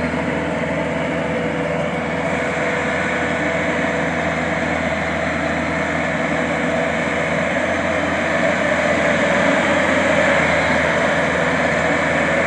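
Combine harvester engine running steadily as the machine reverses through deep mud, getting a little louder about two-thirds of the way through.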